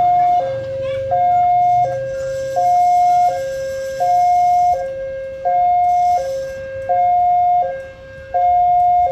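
Railway level-crossing warning alarm sounding an electronic two-tone high-low pattern, each tone held about three quarters of a second and repeating evenly. It is the signal that the barriers are closing for an approaching rail vehicle.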